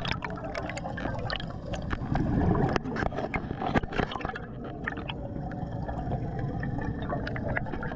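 Underwater sound of a diver's air: bubbles gurgling, louder about two seconds in, over a steady low rumble, with many scattered sharp clicks.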